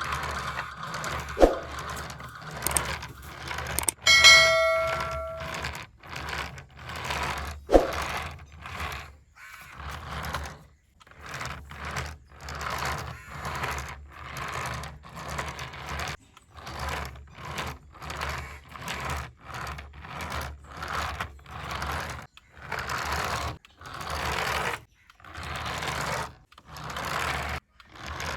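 Toy remote-control car's small electric motor and plastic gears whirring in short repeated bursts as it is driven in stops and starts. There are a few sharp clicks and a brief electronic chime in the first seconds.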